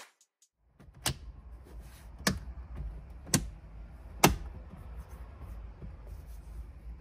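A Honda Civic's plastic under-dash cover at the steering column is being pushed and snapped into place: four sharp plastic knocks or clicks about a second apart over a low rumble.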